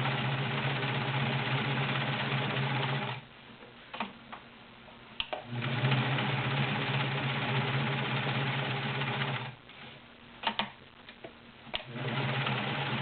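Kenmore 1316 all-metal, belt-driven sewing machine stitching steadily through ten layers of cotton. It runs in three spells, stopping twice for a couple of seconds, with a few sharp clicks in each pause.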